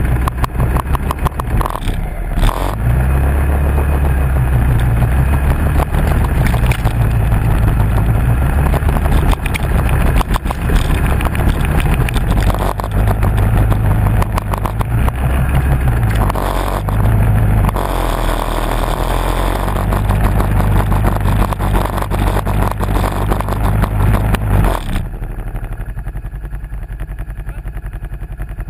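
Can-Am ATV's 1000 cc V-twin engine running with the revs rising and falling, then dropping to a steady idle about 25 seconds in.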